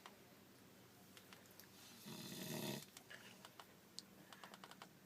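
A man snoring: one loud, rasping snore about two seconds in, lasting under a second, with faint scattered clicks in the quiet between breaths.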